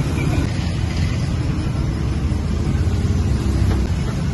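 Steady low rumble of outdoor street noise.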